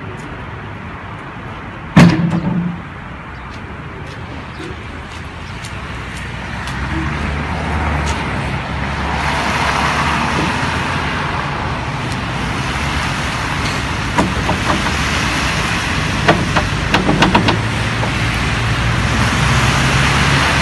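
A single loud bang about two seconds in, then a vehicle engine running steadily and growing louder, with a few clanks and knocks near the end.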